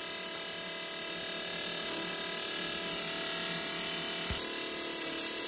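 Twin-cylinder Briggs & Stratton lawnmower engine, fitted with a turbocharger and a blow-through motorcycle carburetor, running at a steady speed with its turbo charge pipe disconnected.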